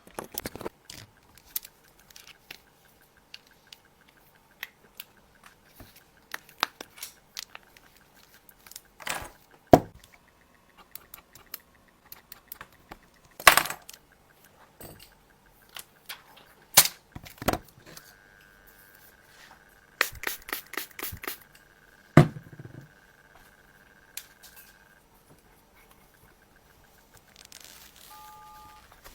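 Sharp clicks and taps of small repair tools and parts being handled on an iPhone 14 Pro Max during a screen repair, scattered at irregular intervals with a few louder snaps. A steady high tone runs for several seconds in the second half, and two short beeps come near the end.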